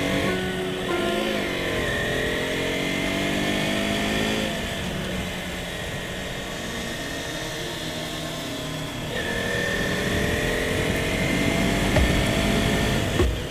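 Motorcycle engine under way, its pitch falling over the first few seconds as it slows, then rising again about nine seconds in as it accelerates. A couple of brief thumps near the end.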